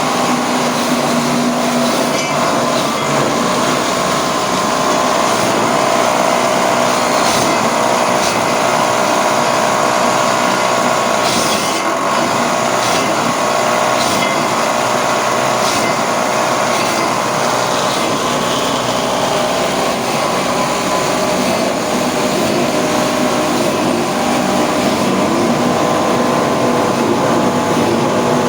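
Coconut milk press machine with a coupled grater, driven by a 2 hp electric motor, running steadily with a constant mechanical hum and a few brief clicks.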